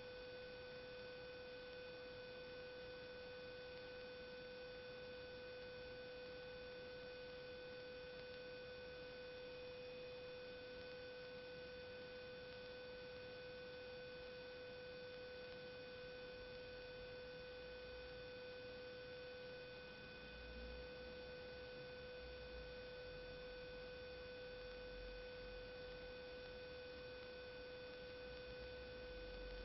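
A steady, unchanging single-note tone with fainter higher overtones.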